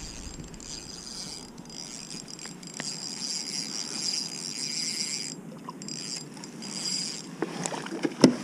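Spinning reel being cranked close to the microphone, a high whirring that stops about five seconds in and starts again briefly. A sharp knock near the end is the loudest sound.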